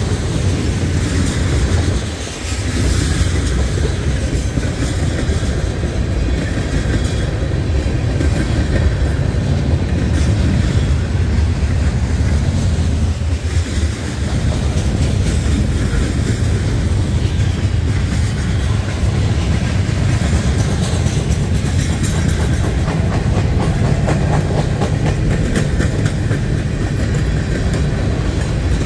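Freight cars of a long train (tank cars, boxcars and autoracks) rolling steadily past: a heavy low rumble of steel wheels on the rails with a continuous clicking. It dips briefly about two seconds in.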